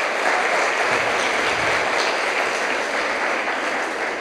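Audience applauding steadily at the end of a lecture, the clapping slowly dying down near the end.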